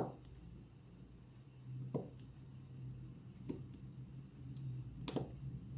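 Soft clicks of diamond-painting drills being pressed onto the sticky canvas with a drill pen, four taps spaced a second and a half to two seconds apart, the last the loudest, over a steady low hum.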